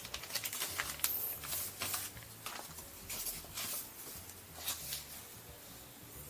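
Packaging and an instruction booklet being handled by hand: irregular paper and plastic rustles with light clicks, dying down about five seconds in.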